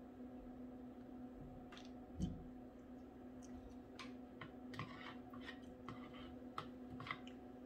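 Faint eating sounds: scattered small clicks and a soft knock about two seconds in, over a steady low hum.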